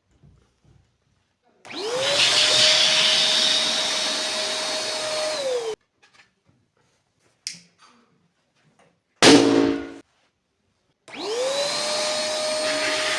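A small electric motor runs twice, about four seconds and then about three seconds, each time whining up to speed, running steadily and winding down as it stops. Between the two runs comes one loud sharp bang.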